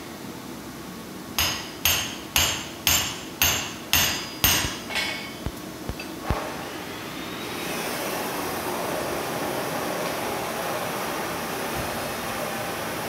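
A hand hammer striking a red-hot steel axe blank on an anvil: about eight ringing blows, two a second, then a few lighter taps. From about halfway through, a steady machine drone takes over, from the power hammer standing ready.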